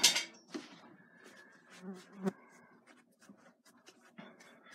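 Paintbrush tapping and scratching on a canvas in short strokes, with a brief loud scuff at the start and a few soft knocks about two seconds in.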